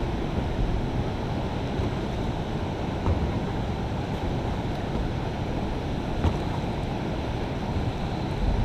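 Steady wind rumble on the microphone, with a couple of faint knocks about three and six seconds in.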